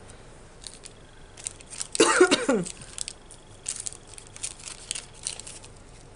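A woman coughs once, about two seconds in, a short hoarse burst falling in pitch; she is ill. Around it, light rustles and clicks of plastic packets and small metal charms being handled.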